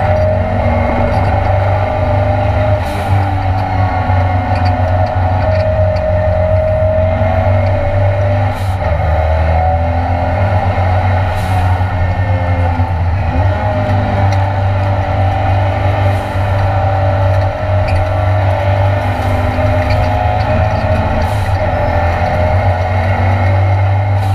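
Ford Escort Mk2 Cosworth race car's engine under full race load, heard from inside the stripped cabin, its pitch rising and falling repeatedly as it accelerates, shifts and slows for corners, with a heavy low drone of drivetrain and road noise beneath.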